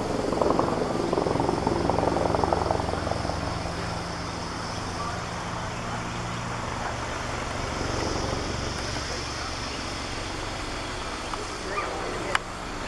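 Distant firefighting helicopter's rotor and turbine drone, steady, as it finishes a water drop and flies off. Louder for the first three seconds, then settles to a lower steady level, with a single sharp click near the end.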